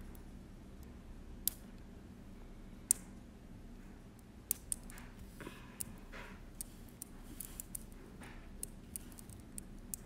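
Small metal magnet balls clicking as a strand of them is wrapped around a tube of magnet balls, each ball snapping onto the others. The clicks are sharp and irregular: a few in the first half, then many more from about halfway, with a brief rustle of handling.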